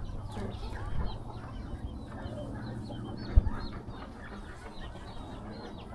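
Chickens clucking softly on and off, with a single low thump about three and a half seconds in.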